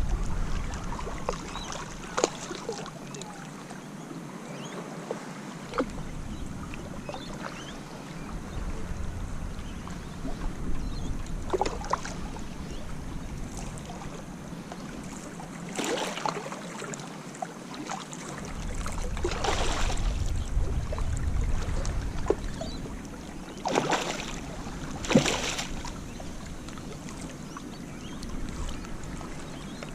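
Wind buffeting the microphone on a surf beach, with a rumble that comes and goes and a few short rustles or knocks scattered through.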